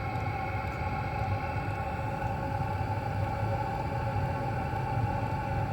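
Chinese 5 kW diesel air heater running steadily on its first start-up, its blower giving an even hum and whir as fuel first reaches it and it begins to fire.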